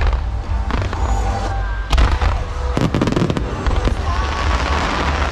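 Display fireworks fired in volleys: sharp bangs at the start and about two and three seconds in, then a dense crackle from the bursting shells through the rest.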